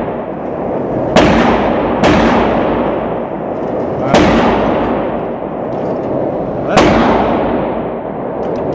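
Four gunshots, unevenly spaced, the third and fourth with longer gaps. Each is followed by a long echoing tail.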